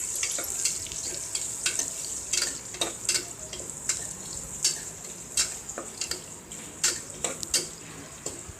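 Sliced onion sizzling in hot oil in a pressure cooker as it is sautéed, with a spatula stirring and scraping against the pot in irregular strokes.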